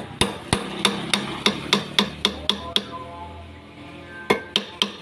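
Light hammer taps on a steel rod at a Yamaha Aerox 155 cylinder head, metal on metal with a short ring, about four taps a second: ten in a row, a pause of about a second and a half, then three more near the end.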